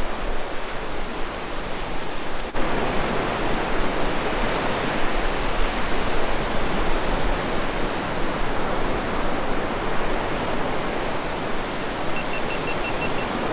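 Gulf surf washing onto a sandy beach: a steady rush of noise.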